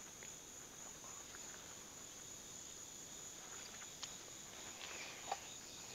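Crickets trilling steadily in a high, even band, with a few faint clicks near the end.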